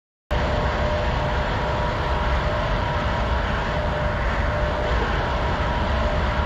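Jet airliner engines running steadily in flight: a constant rumble and hiss with a faint steady hum, starting abruptly about a third of a second in.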